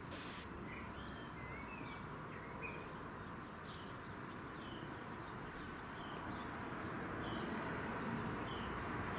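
Small birds giving short, repeated chirps, about one or two a second, over a steady low background rumble.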